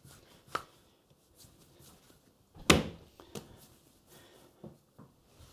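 Hands shaping bread dough on a wooden worktop: scattered soft knocks and pats, the loudest a single thump about two and a half seconds in.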